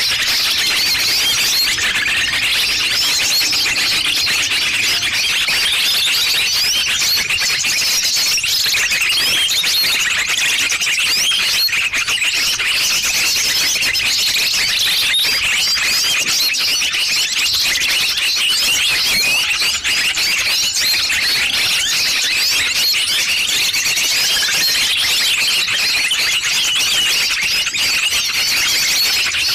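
Dense chorus of many small birds chirping and twittering at once, a layered lure call for attracting small birds. The high chirps crowd together without a break.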